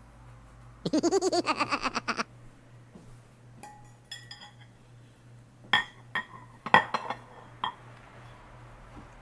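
A fork and glass bowls clinking: scattered sharp ringing clinks, a few near the middle and a cluster a little later. About a second in comes the loudest sound, a rapidly pulsing warbling tone lasting just over a second.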